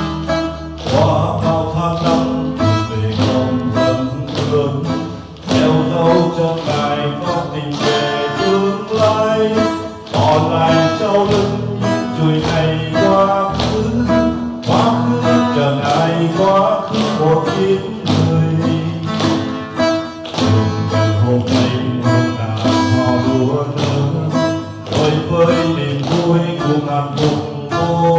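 A man singing into a microphone while strumming an acoustic guitar in a steady rhythm.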